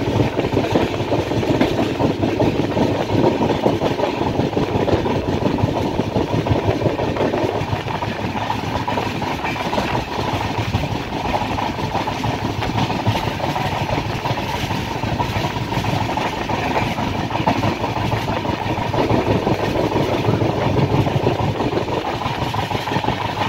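Chozhan Express passenger train running, heard from on board: a steady rumble and rattle of the carriage's wheels on the rails.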